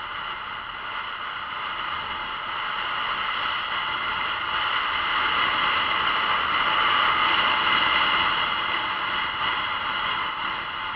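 Steady rush of wind and road noise on a camera mounted on a moving Honda CB500X motorcycle, swelling in the middle and easing near the end.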